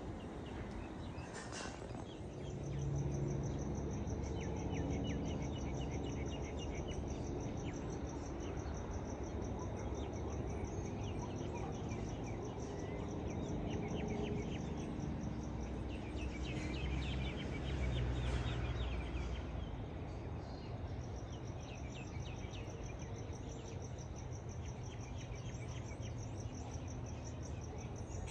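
Evening outdoor ambience: an insect trilling in a steady, fast, high-pitched pulse that stops for a stretch in the middle and starts again, with scattered bird chirps over a low, constant rumble.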